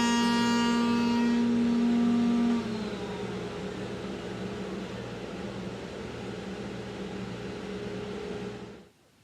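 Electric router, fitted for rounding over the wood's edges, running at full speed with a steady high whine, switched off about two and a half seconds in and winding down. A quieter steady machine whir carries on after it and cuts off abruptly near the end.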